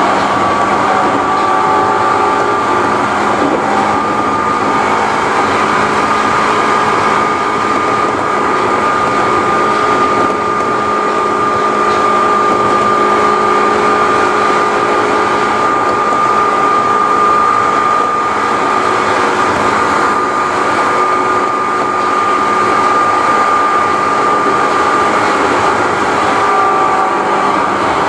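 Seibu New 101 series electric train running at speed, its traction motors giving a loud, steady high whine over wheel and track noise, heard from inside the cab of the leading motor car. The whine holds an almost steady pitch and sinks slightly near the end.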